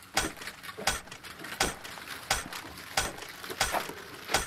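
Footsteps of a man walking at a slow, even pace on dry dirt ground, about seven steps.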